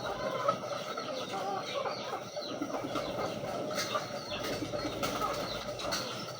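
A loft full of racing pigeons: a busy mix of many bird calls with wings flapping.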